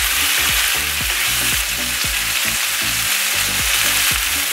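Scallops, chorizo and arugula sizzling in a hot nonstick frying pan, with a wooden spatula stirring and scraping through them in quick, regular strokes.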